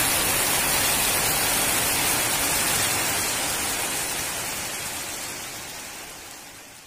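Torrential monsoon rain: an even, steady hiss of heavy rain falling, which fades gradually away over the second half.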